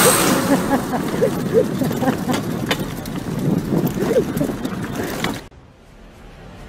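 Road and wind noise from riding in a moving vehicle, with people's voices chattering and a few knocks. It cuts off abruptly about five and a half seconds in to a much quieter background hum.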